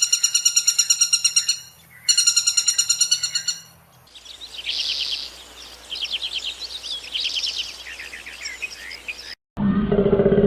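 Bird calls: two rapid pulsing trills about 1.5 s long each, then a run of quick chirps. Near the end the sound cuts abruptly to a louder, lower-pitched animal call.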